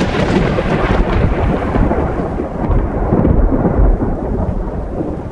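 Thunderstorm: a long, continuous rumble of thunder over the hiss of rain, the high hiss thinning about halfway through.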